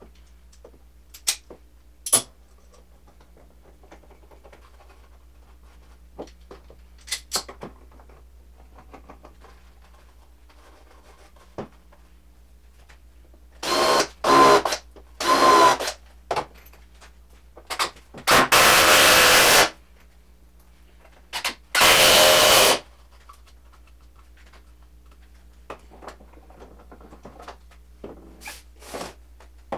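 Power drill running in four short bursts of about a second each, driving screws into the frame lumber, the first two with a steady motor whine. Scattered knocks of wood being handled come before and after.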